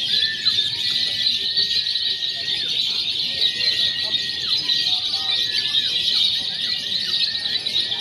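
Many caged lovebirds singing at once: a dense, unbroken, high-pitched chattering trill, with a thin steady whistle-like note running underneath.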